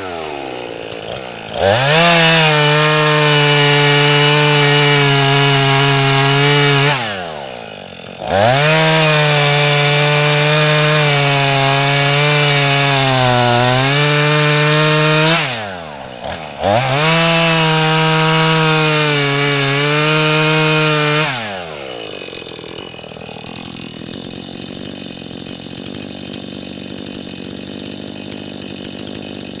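Two-stroke Jonsered chainsaw cutting through oak logs: three long full-throttle runs, the pitch sagging under load in the cut, with brief drops to idle between them. Near the end it settles into a steady idle.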